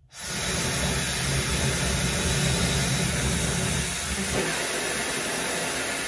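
ANLAN handheld hair dryer switched on and running: a steady rush of blown air over a low motor hum, starting abruptly. Its sound shifts slightly about four seconds in.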